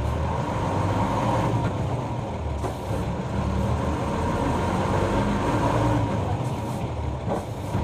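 Route bus's diesel engine running as the bus drives, with road noise, as heard on board. The low engine drone shifts in pitch as the bus changes speed.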